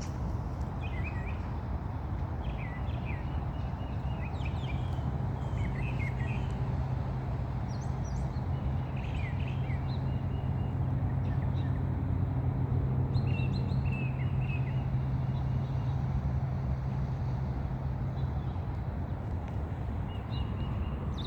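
Distant passenger jet passing overhead: a low, steady rumble with a droning hum that swells to its loudest about halfway through and then fades. Birds chirp in short calls on and off throughout.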